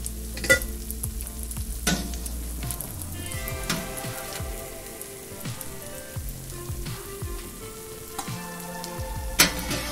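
Oil sizzling under slices of Dominican fried cheese in a frying pan, with a few sharp clinks of a wire spider strainer against a stainless steel bowl as boiled green plantains are scooped in. One clink comes near the start, another about two seconds in, and the loudest near the end.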